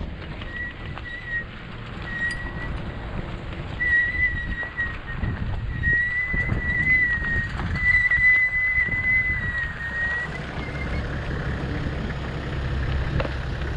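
A high whistling note near one pitch, held and broken off several times over about ten seconds, over a low rumble.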